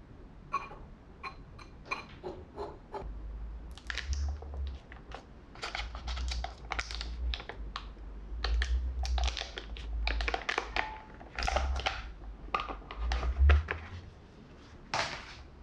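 A stick of softened butter's wrapper crinkling as it is peeled off by hand, in repeated crackly rustles with low handling thuds. It is preceded by a few seconds of light clicks of a wire whisk against a glass bowl.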